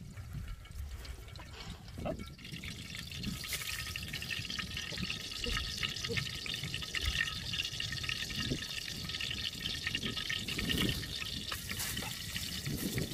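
Oil sizzling in a hot metal wok over a wood fire. The hiss starts suddenly a couple of seconds in and then holds steady, with scattered low knocks from handling.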